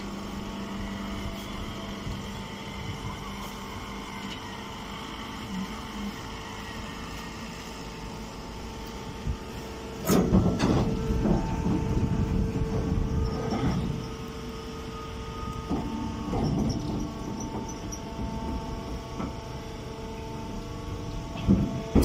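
Machinery running with a steady, even hum, and a louder stretch of knocking and rattling for a few seconds about halfway through.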